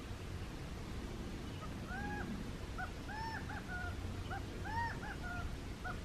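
A bird calling from the scrub: a quick run of short rise-and-fall notes, several a second, starting about two seconds in and going on.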